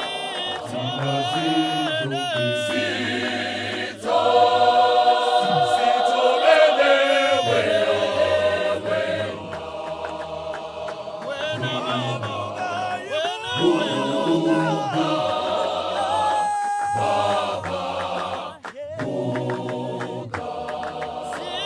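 Male choir singing a cappella in full harmony, deep bass voices under a higher melody, growing louder about four seconds in.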